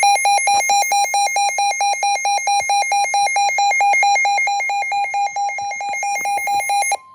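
A weather radio receiver's alert alarm, set off by a Special Marine Warning: a loud, high electronic tone beeping rapidly and evenly, several beeps a second. Near the end it cuts off and a short steady tone, the broadcast's warning alert tone, is heard.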